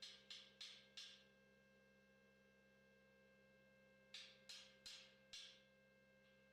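Two runs of sharp knocks, about three a second, over a faint steady hum: a few right at the start, then five more about four seconds in.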